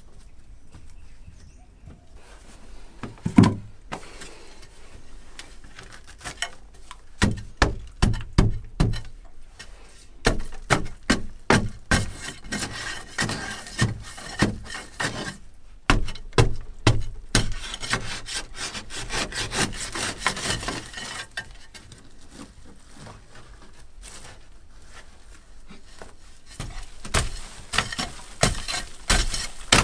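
Hand tools working material: runs of sharp knocks, with a stretch of scraping in the middle and a quick series of knocks near the end.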